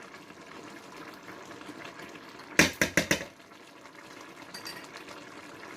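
Chicken and tomato masala simmering in a pot, with a quick run of sharp metal clinks and knocks about halfway through, a spoon against the pot.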